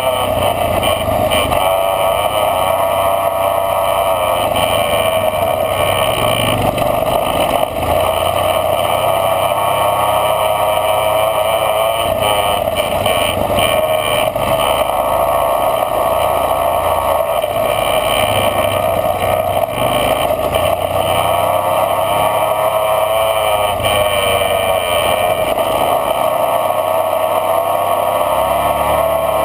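Engine of a small off-road vehicle running steadily while riding a sandy dirt trail, its pitch sagging and climbing back twice as the throttle eases and opens. Wind buffets the camera microphone underneath.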